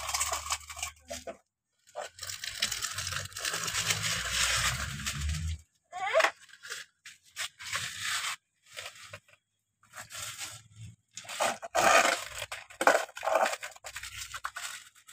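Plastic toy excavator bucket digging and scraping through sandy soil, gritty crunching in several stretches broken by short pauses.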